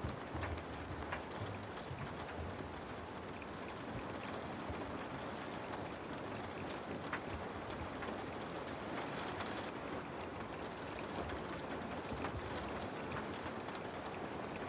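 Steady rain on a window: an even hiss with scattered sharper taps of single drops.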